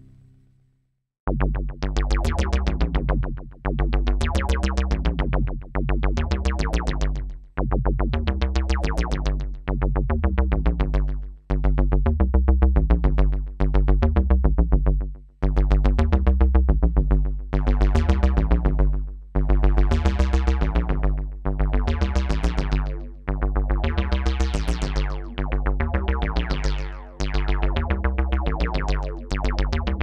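A Sequential Prophet 12 synthesizer plays a fast arpeggiated sequence of rapid repeated notes over a deep bass. It starts about a second in, after the previous sound dies away. The notes come in phrases of about two seconds, each swelling bright and then fading.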